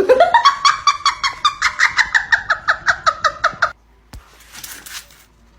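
An animal's call: a rapid run of short pitched notes, about seven or eight a second, rising at the start and then held for nearly four seconds before stopping abruptly.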